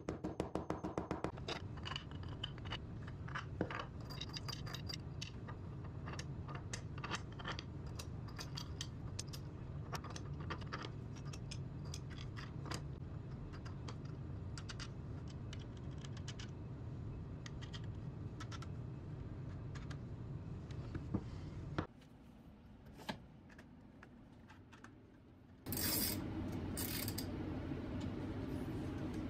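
A claw hammer tapping rapidly, about eight quick strikes, driving a metal nut into a drilled plywood plate. Then small metal hardware (bolts, washers, nuts) clicks and jangles as it is fitted, over a steady low hum. After a drop in level, a few sharp metallic tool noises sound near the end.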